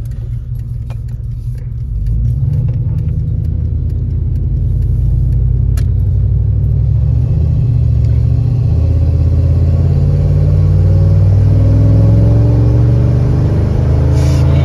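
Pickup truck engine heard from inside the cab, a loud low rumble that gets louder about two seconds in as the truck pulls away, then climbs steadily in pitch as it accelerates.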